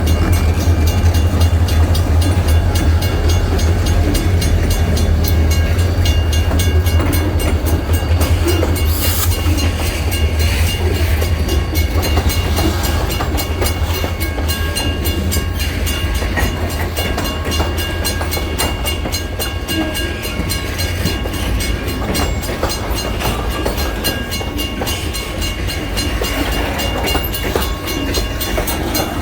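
Freight train rolling past at a grade crossing: a steady low rumble with wheels clacking over the rail joints, easing gradually.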